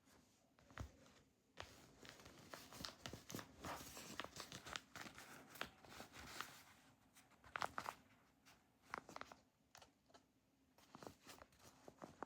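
Quiet crinkling and crackling of a homemade squishy being squeezed and handled, dense for about five seconds starting a second and a half in, then scattered clicks.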